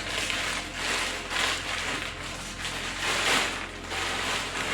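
Plastic packaging bag crinkling and rustling as it is opened and handled, in repeated surges.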